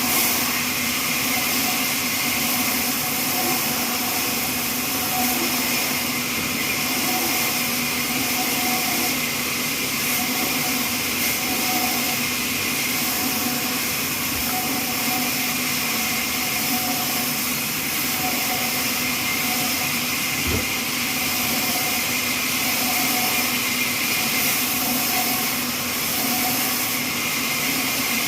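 Horizontal trolley band sawmill running steadily, a constant loud machine hum and hiss with a few steady tones.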